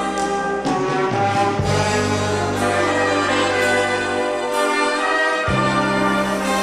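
Brass band (wind orchestra) playing full chords, sustained low brass bass notes changing every second or two under brighter upper parts, with a few sharp accented strikes.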